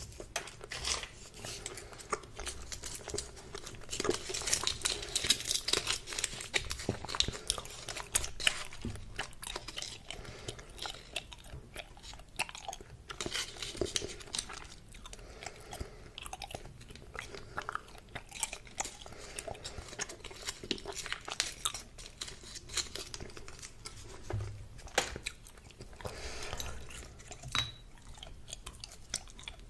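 Hubba Bubba bubble gum being chewed: irregular mouth clicks and smacks that go on throughout, busiest a few seconds in.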